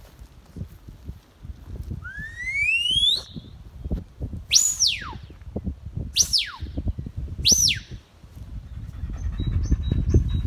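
Shepherd's whistle commands to a working border collie: one rising whistle, then three sharp whistles that each swoop down in pitch, about a second and a half apart. A low rumble runs underneath, and a run of short high peeps comes near the end.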